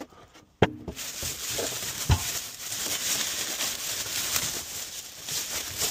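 Packaging being handled: a sharp click about half a second in and a knock about two seconds in, then steady crinkling and rustling of plastic wrapping.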